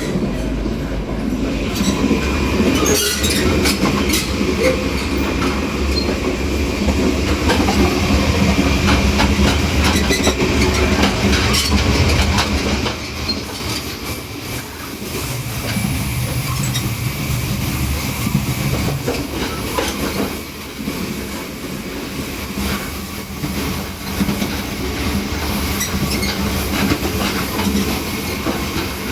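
Taiwan Railways push-pull Tze-Chiang express running at speed, heard at the connection between the locomotive and the first coach: a heavy rumble with rail-joint clatter and occasional wheel squeal. The rumble eases somewhat about twelve seconds in.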